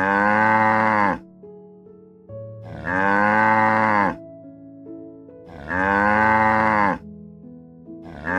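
Cow mooing: three long, alike moos about every three seconds, each dropping in pitch as it ends, with a fourth starting right at the end. Soft background music plays in the gaps between them.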